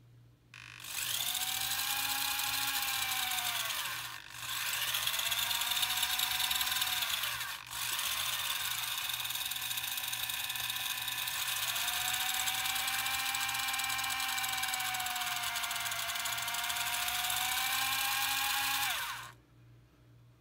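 A pair of small 300 rpm micro gear motors whining as they spin the paddle wheels, the pitch rising and falling as the speed is ramped up and down. The whine cuts out briefly twice, where the motors stop and start again, and stops shortly before the end.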